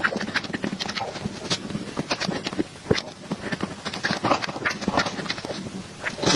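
Close-miked mouth sounds of someone eating cake: chewing and lip-smacking, a dense run of quick clicks.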